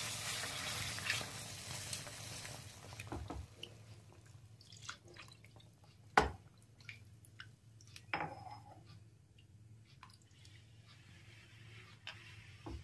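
Hot roasted moong dal in ghee sizzling as milk goes into the pan, the sizzle dying away over the first few seconds. Then a silicone spatula stirs the milky mixture with scattered soft knocks and scrapes against the pan, the sharpest knock about six seconds in.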